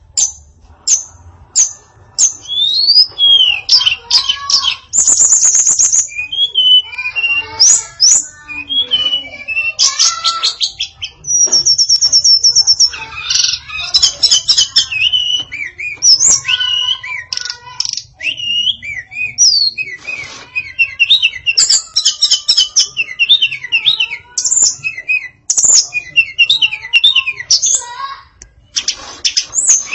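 Female tledekan songbird singing a varied, continuous song of quick chirps, sweeping whistles and fast high trills, with only brief pauses.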